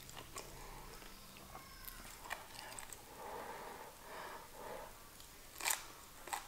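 Crisp toasted rice crust (nurungji) being pulled from the pan by hand and chewed with its mouth close to the microphone, giving scattered sharp crackles and crunches. The loudest crunch comes a little before the end.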